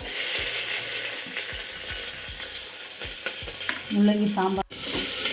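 Food sizzling as it fries in a pan, a steady hiss with light knocks of a spoon stirring. A short burst of voice comes near the end, and the sound drops out for an instant just after it.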